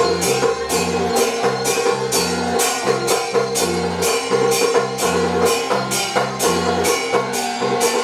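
Taiwanese opera accompaniment band playing an instrumental passage: a steady beat of sharp percussion strikes, about three a second, over a bass line that steps from note to note and a held melody tone.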